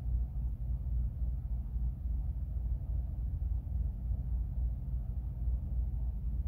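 Steady low rumble that wavers slightly in level.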